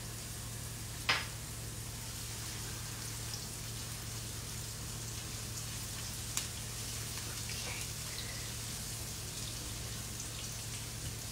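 A dal tadka of cumin, green chilli and sliced garlic sizzling steadily in hot fat in a nonstick kadai while a spatula stirs it. There is one sharp knock about a second in.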